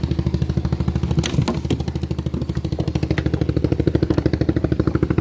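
A boat's engine idling with a fast, even beat, and a few sharp knocks a little over a second in.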